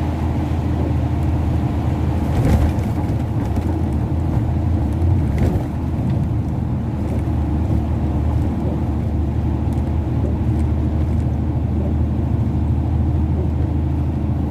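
Inside a car's cabin while driving, in low gear: steady low engine and road rumble, with a couple of brief knocks a few seconds in.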